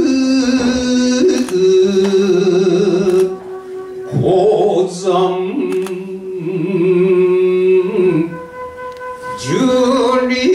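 A man chanting shigin, Japanese recited poetry, in long held notes with a wavering, ornamented pitch. The phrases break off briefly about a third of the way in and again near the end before the voice rises into the next line.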